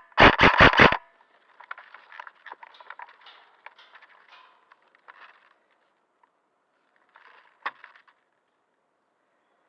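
Airsoft gun firing a quick string of about five loud shots in the first second, followed by faint scraping and rustling, then a single sharp click a little before the end.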